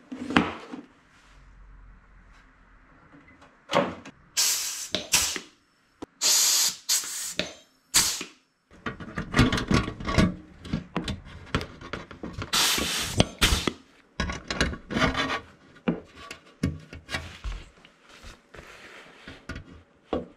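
Hand-tool work on aluminium sheet-metal aircraft parts: a string of short scrapes, clicks and brief rasping noises, busiest through the middle and thinning near the end.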